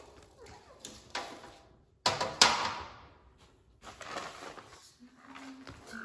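A hard plastic bird-cage tray being handled and set down on a tiled floor: a few light knocks, then a loud plastic clatter about two seconds in, followed by softer scraping and rustling.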